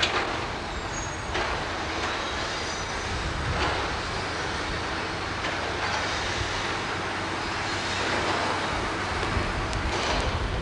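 Steady rumbling vehicle noise with hiss on a camcorder microphone, broken by a few brief knocks near the start, about a second and a half in, and near the end.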